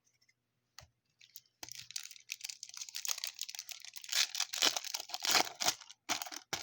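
A trading card pack's wrapper being torn open and crinkled, with a few small clicks first and then a run of sharp crackling that grows loudest in the second half.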